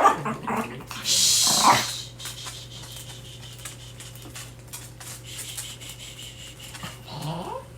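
Small dogs in a room: a short bark at the start, a brief rush of hiss a second in, then a quieter stretch with faint ticks over a steady low hum, and a rising whine near the end.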